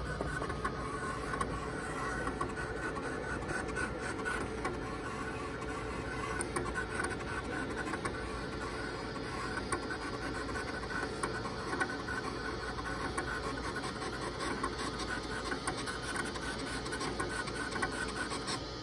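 Graphtec CE6000-60 vinyl cutting plotter cutting a job. Its servo motors whine in short, changing spurts as the cutting head and the rollers shuttle the vinyl back and forth, with faint clicks.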